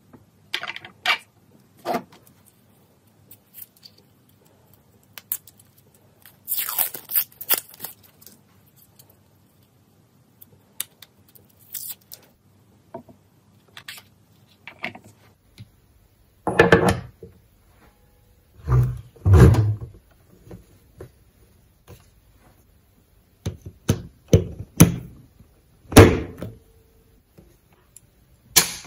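Parts of a GVDA GD318 soldering station being handled and fitted together: scattered plastic and metal knocks, scrapes and thunks, loudest in a run of thunks in the second half. A sharp click near the end as the rocker power switch is pressed.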